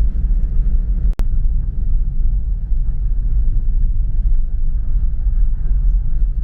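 Car driving on a dirt road: steady low rumble of engine and tyres on the unpaved surface, with a brief break in the sound about a second in.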